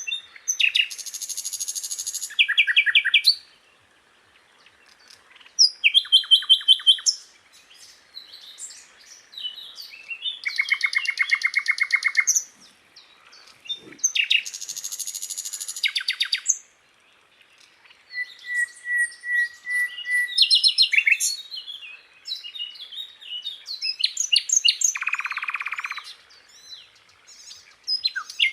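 Sikatan londo flycatcher singing a long, varied song. It mixes high buzzy rattles, rapid trills and a short run of even piping notes, in phrases a second or two long separated by brief pauses.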